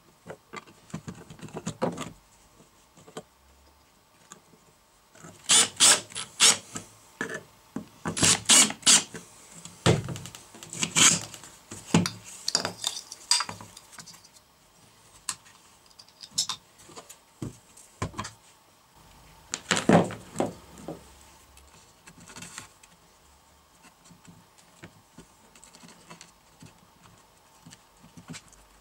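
Hands handling and fitting a metal drawer slide, plastic parts and a wooden board: scattered clicks, knocks and light metallic clatter. They are busiest in the first half and thin out near the end.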